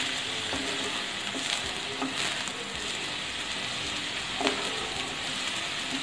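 Chopped onion, green chilli and garlic sizzling steadily in hot oil in a non-stick kadhai, with a wooden spatula scraping and tapping the pan as they are stirred. A sharper knock of the spatula comes about four and a half seconds in.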